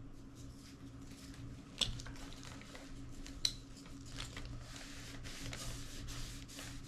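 Quiet handling of a camcorder: soft rubbing and shuffling with two small sharp clicks, about two and three and a half seconds in, over a faint steady hum.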